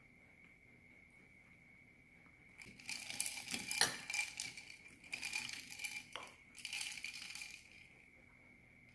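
Ice cubes clinking and rattling against a tall glass as iced orange soda is stirred with a metal straw, in three bouts of a second or so each.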